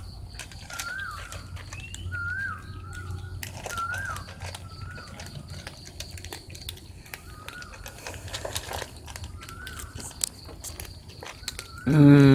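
A bird calling over and over, a short rising-and-falling note about once a second, with light clicks in between.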